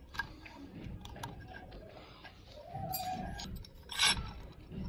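Light clicks and taps of small metal parts being handled, with a louder clatter about four seconds in.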